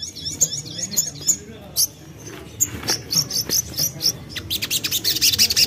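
Brown-throated sunbird (sogon / sogok ontong) singing: quick, high, sharp chirps that run together into a dense, rapid twittering near the end.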